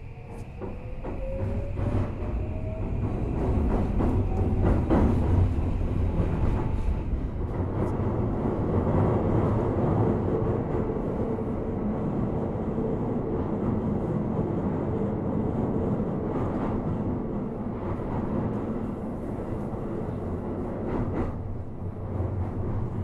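Toei 5500 series electric train heard from inside the car, pulling away. Its motor whine rises in pitch and the running noise grows louder over the first few seconds, then settles into steady running with wheel-on-rail rumble, a held motor tone and scattered clicks.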